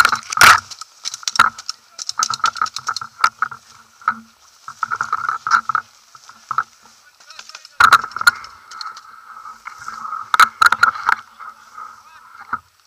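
Dry grass and clothing scraping and rustling against a body-worn action camera as the wearer crawls low through grass, in irregular bursts with many sharp clicks and scrapes.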